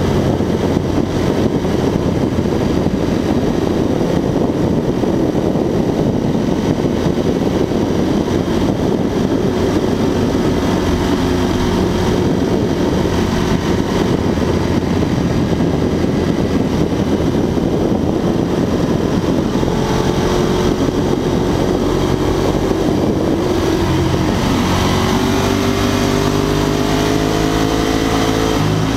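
Ducati 1098's L-twin engine running at road speed under a heavy rush of wind on the microphone. From about twenty seconds in the engine note comes through more clearly and rises slowly as the bike accelerates.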